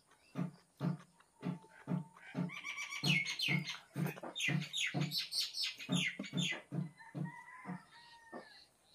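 Close-miked chewing of a mouthful of rice and chicken curry, about two chews a second. Birds chirp in the background for a few seconds in the middle.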